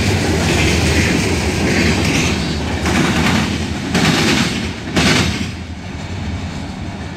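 Freight train cars, the last covered hoppers, rolling past with clattering wheels on the rails. Three short louder bursts of noise come about three, four and five seconds in. The sound then fades as the end of the train moves away.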